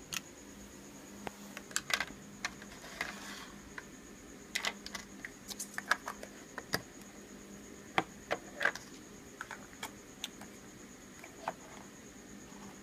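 Light clicks and knocks of plastic Play-Doh molds, lids and cans being handled and set down on a wooden table, scattered irregularly with a few sharper taps.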